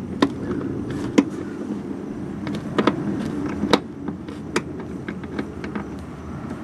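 Irregular light clicks and taps of a screwdriver working a small star-pattern (Torx) bolt loose, over a steady low hum.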